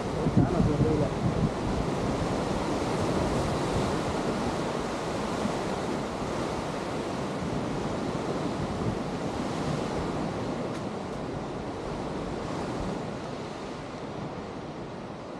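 Ocean surf breaking and washing steadily, with wind buffeting the microphone, the gusts strongest in the first second or so.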